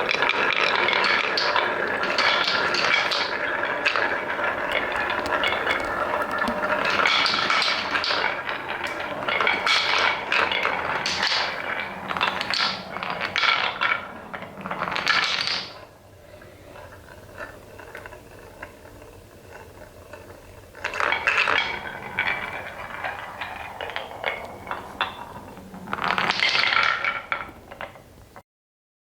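Wooden balls rolling and clattering down a wooden marble run, a dense stream of rolling with many clicks for about the first half. It then thins to a faint rolling, with two more bursts of clattering later, and the sound cuts off just before the end.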